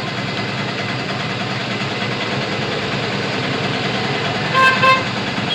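Steady rushing of hot air from an SMD hot-air rework station heating a phone's charging jack to melt its solder. About four and a half seconds in come two short horn toots in quick succession.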